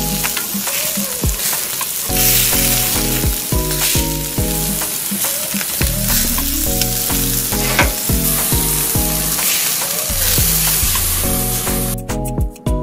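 Marinated ribs sizzling on a hot grill, a steady crackling hiss, with background music over it. Near the end the sizzling drops away.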